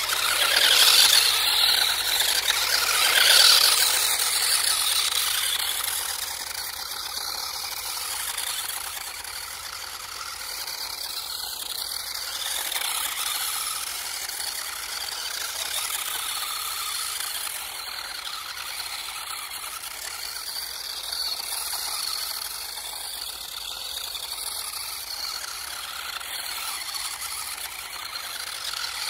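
Small electric RC drift car running, modified to run on three Li-ion cells: a motor whine with tyre and chassis noise. It is loudest in the first few seconds, then runs on at a steadier level.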